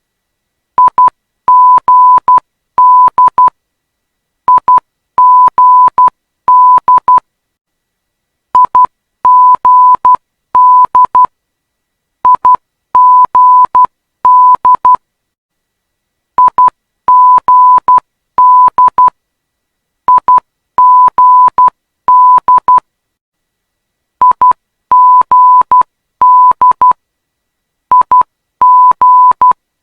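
Morse code ident of the Perth ILS / localiser for runway 21: a steady tone of about 1 kHz keyed in dots and dashes. The same short letter group repeats about every four seconds, eight times in all, the last still sounding at the end.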